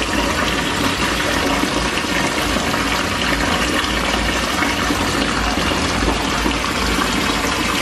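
Water running steadily from the tap into a filling bathtub.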